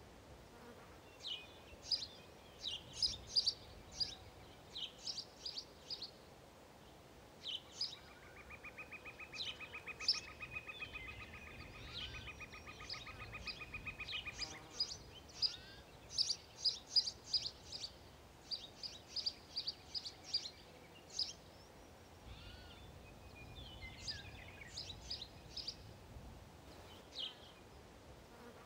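Sparrows chirping: many short, high chirps in quick runs with pauses between. From about eight to fifteen seconds in, a steady buzzing trill of rapid, even pulses runs beneath them.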